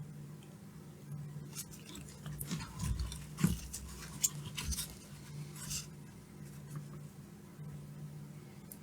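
Faint clicks and scrapes of small tools and handling at a workbench, with a knock about three and a half seconds in, over a steady low hum.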